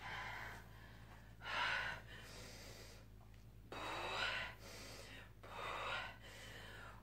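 A woman breathing hard while exercising, with three loud gasping breaths about two seconds apart, in time with her dumbbell lateral raises.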